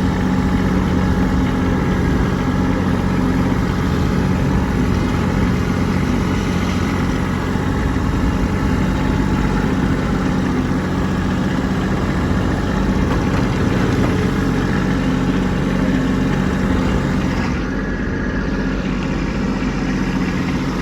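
Kubota B2601 compact tractor's three-cylinder diesel engine running steadily while the tractor pushes snow.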